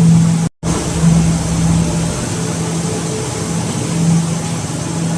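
Hydraulic cotton baler running, a steady machine hum over broad mechanical noise that swells a little now and then. The sound breaks off completely for a moment about half a second in.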